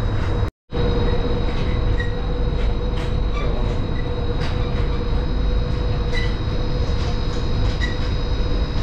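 Dubai's Palm Jumeirah monorail running, heard from inside the car: a steady rumble with a constant hum. The sound cuts out completely for a moment about half a second in.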